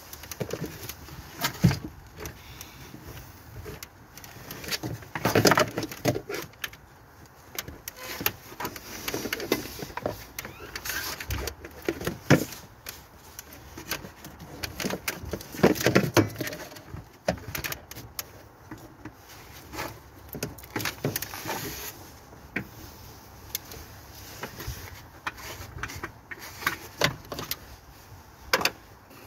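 Irregular clicks, knocks and rattles of hands and tools working on a car engine as the fuel rail and its injectors are pulled off the plastic intake manifold, with a couple of louder clattering stretches.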